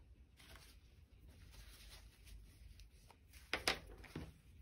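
Quiet handling of painting materials on a table: faint rustling, then two sharp clicks close together about three and a half seconds in.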